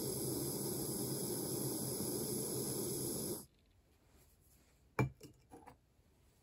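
Gas torch flame hissing steadily on a brass ring, shut off abruptly about three and a half seconds in, leaving the ring glowing red. About a second and a half later comes one sharp click and a few lighter clicks as metal tweezers are picked up.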